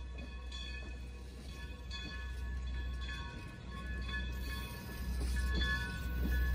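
Excursion train's passenger cars rolling past on the track: a low rumble with several steady high-pitched tones over it and a few faint clicks, getting louder near the end.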